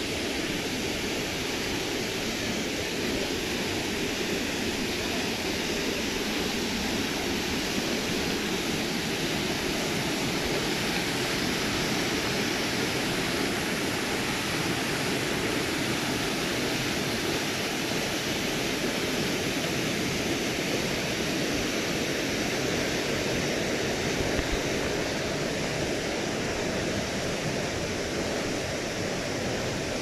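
Steady rush of a fast river running and splashing over rocks.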